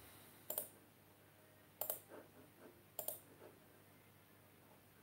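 Faint clicks from working a computer: three distinct clicks about half a second, two seconds and three seconds in, with a couple of softer ones between.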